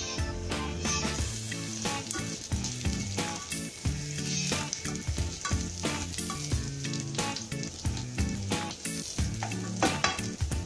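Sliced onions and garlic sizzling as they fry in oil in a nonstick wok, with a spatula repeatedly scraping and stirring them around the pan. Background music plays underneath.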